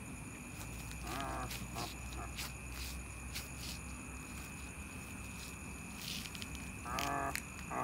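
Steady high drone of night insects with scattered faint clicks, broken by short pitched cries about a second in and again, louder, near the end.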